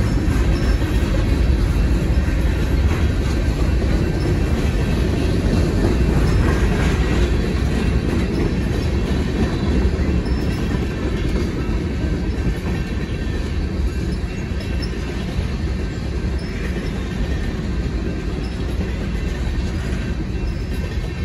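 Freight cars of a mixed manifest train (tank cars, covered hoppers, boxcars) rolling steadily past, steel wheels running over the rails.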